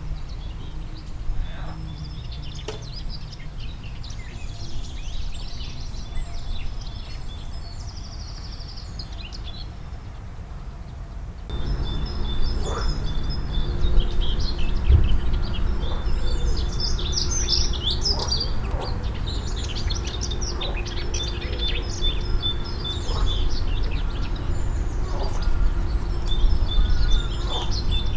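Several songbirds singing and calling in quick chirps and trills over a steady low rumble. Everything gets louder and busier about eleven seconds in.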